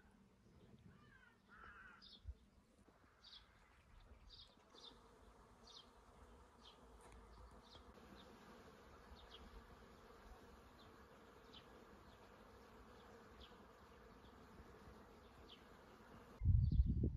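A fly buzzing faintly and steadily, with short high chirps repeating about once a second. A sudden loud low rumble comes in near the end.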